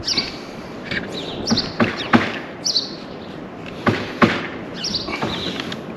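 Sharp clicks and knocks from a cordless power tool being handled while a fabric sock is fitted over it; the tool is not running. A bird chirps in short calls repeated every second or so behind it.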